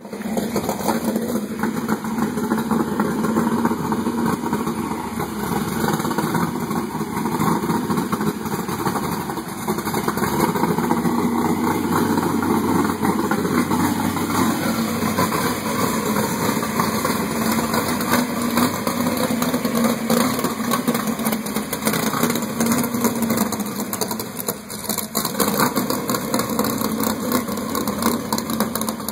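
A 1940 Studebaker coupe drag car's engine idling steadily, loud and unbroken, with a brief dip in level near the end.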